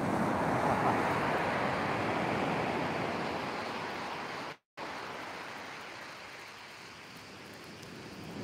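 Surf breaking on a shingle beach. A wave crashes at the start and its wash fades away, then the surf builds again near the end. The sound cuts out completely for a moment a little over halfway.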